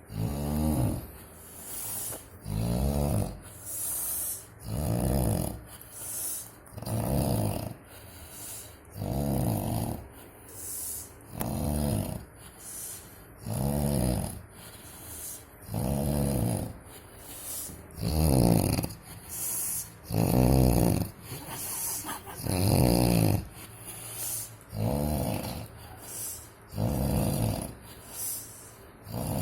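Heavy snoring: a loud snore about every two seconds, each followed by a softer breath out, in a steady rhythm.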